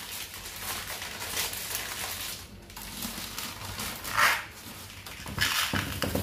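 Crinkling plastic spaghetti packet being handled and tipped to empty the leftover dry pasta into a glass storage jar, with a louder crackle about four seconds in and another near the end.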